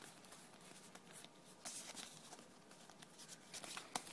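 Faint rustling and light clicks of a fanned hand of Pokémon trading cards being handled and slid against one another, with a few short scrapes and the sharpest one near the end.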